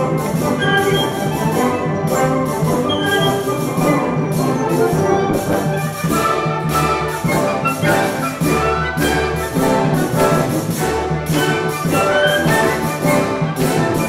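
Full symphonic wind band playing an Irish-style concert piece: brass and woodwinds carry a lively melody over a steady drum beat.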